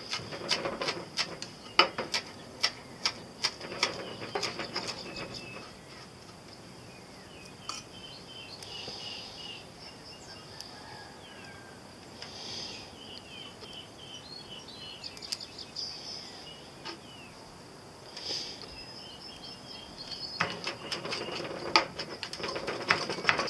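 Chef's knife chopping fresh herbs on a wooden cutting board: quick runs of sharp knocks for the first five seconds or so and again near the end. In the pause between, a steady high insect buzz and a few short bird-like chirps.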